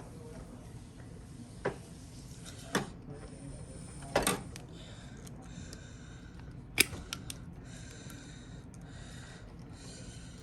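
Wire terminals being worked off a small HVAC run capacitor: a few sharp clicks spaced a second or more apart, with fainter ticks between them.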